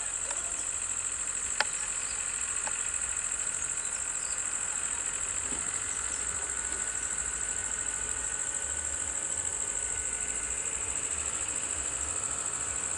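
Low, steady running of an idling bus engine under a constant high-pitched insect drone, with one sharp click about one and a half seconds in.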